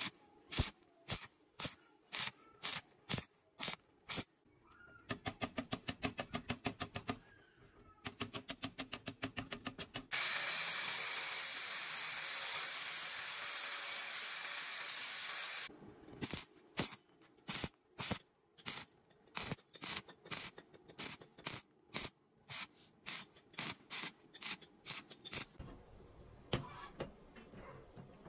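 Sharp ticks in an even beat, about two a second, with faster runs of ticks in between. From about ten seconds in, an angle grinder with a flap disc grinds steel with a steady hiss for about five seconds, louder than the ticks.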